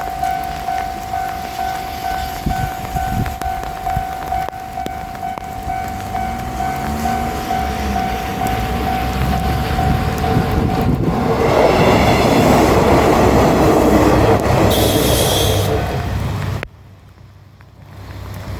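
Level-crossing bell ringing steadily with a pulsing chime. A JR Shikoku 185 series diesel railcar approaches with a rising engine note, then passes loudly over the crossing for about five seconds. The sound cuts off abruptly near the end.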